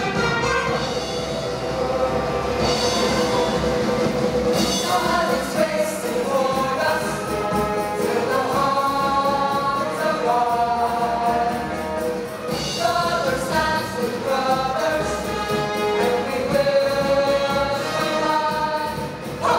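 A group of voices singing together in held notes, choir-style, over instrumental backing music.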